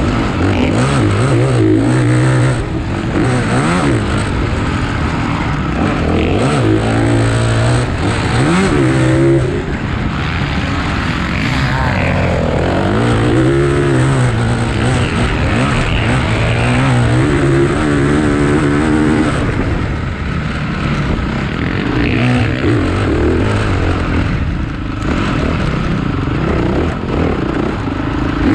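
Several motocross dirt bikes racing, their engines revving up and down and overlapping, the pitch rising and falling many times.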